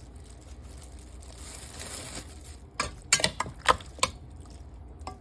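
Kitchen handling noise as marinated chicken wings are moved into a plastic bag of seasoned flour: a soft rustle, then about five sharp clicks and knocks in quick succession a little under three seconds in.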